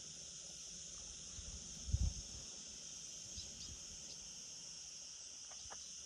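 Steady high chirring of crickets or similar insects, with a low thump about two seconds in and a few brief faint chirps.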